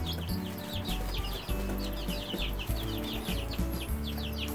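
A brood of three-week-old chicks peeping busily, many short falling peeps overlapping several times a second, over low background music.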